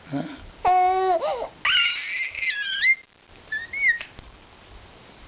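Four-month-old baby vocalizing: a short rising coo, a longer voiced cry-like sound, then several very high-pitched wavering squeals, stopping about four seconds in.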